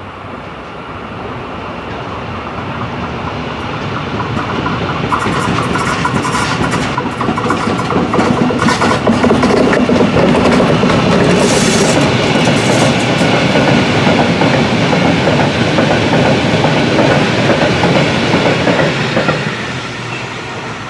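DB Cargo class 159 Stadler Euro Dual locomotive hauling a short train of empty sliding-roof freight wagons down a grade, passing close by. The sound grows louder over the first several seconds, stays loud while the wagons pass with wheels clicking over the rail joints, and fades near the end.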